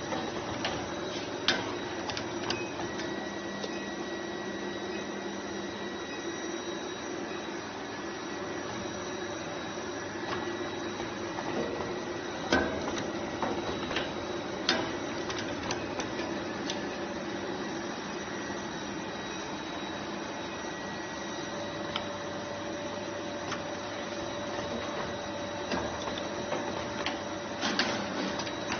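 Automatic brazing machine for diamond saw blade segments running with a steady mechanical hum and several held high tones, with a few sharp clicks or knocks from its mechanism here and there.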